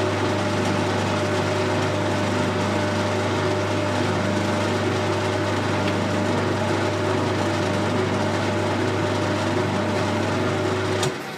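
Colchester Student lathe running steadily through a screw-cutting pass on an internal ACME thread, a steady hum with gear whine. Near the end it is switched off and the sound drops sharply and dies away.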